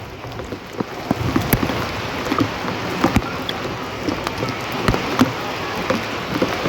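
Rain falling steadily: an even hiss of rain with frequent separate drops striking a surface at irregular intervals.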